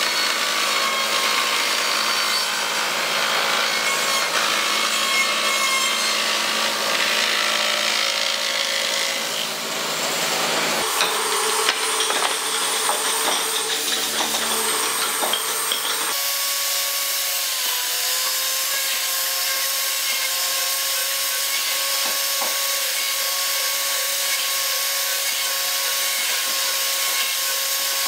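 Power woodworking machines cutting hardwood: a table saw running and sawing through timber, then, after abrupt changes, an electric tool motor running steadily with a whine that dips in pitch briefly.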